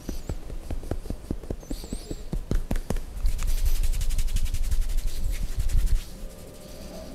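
A barber's hands working in a head, face and neck massage: scattered taps and rubs, then about three seconds of fast, even tapping strikes that stop suddenly.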